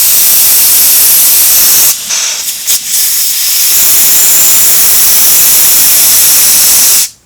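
Compressed-air blow gun hissing loudly as it blows liquid and moisture out of a passage in an outboard carburetor's float bowl. The air stream is briefly let off and restarted a few times about two seconds in, then cuts off suddenly near the end.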